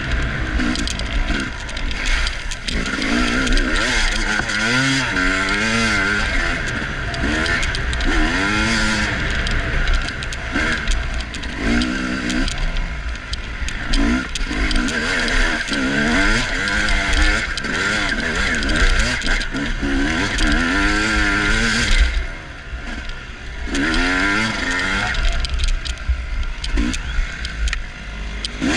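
Dirt bike engine revving up and down over and over as the rider works the throttle through a slick, muddy trail, with a brief let-off about three quarters of the way through. A steady hiss and rattle from the mud-covered on-board camera, with something shaking loose on it, runs over the engine.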